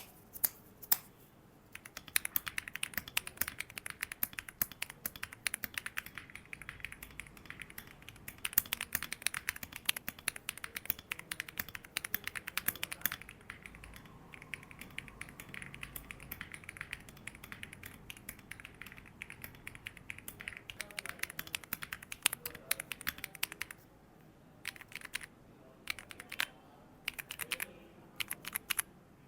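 Epomaker Tide65 mechanical keyboard in an aluminium case, with Epomaker Lemon switches, being typed on: fast, dense runs of keystroke clicks. A few single presses come at the start, and after a short break about 24 seconds in the presses are scattered.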